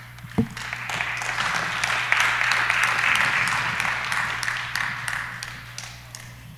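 Audience applauding: the clapping starts about half a second in after a short thump, swells to a peak, then dies away near the end. A steady low electrical hum runs underneath.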